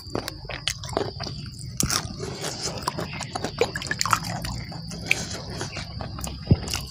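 Close-up chewing and crunching of a mouthful of spicy chicken-feet papaya salad and raw leucaena shoots, with irregular wet mouth clicks. A steady high insect drone underneath.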